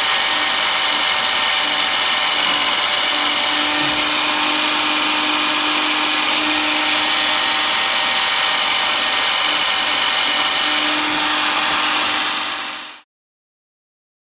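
Electric chainsaw chain sharpener's grinding wheel running and grinding the chain's teeth, a steady loud high whirring hiss. It stops abruptly about a second before the end.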